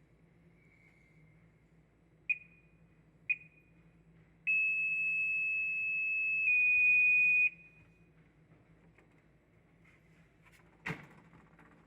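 Fire alarm buzzer giving two short high beeps about a second apart, then a steady high-pitched tone for about three seconds that gets louder about two seconds in and cuts off suddenly. A single click or knock follows near the end.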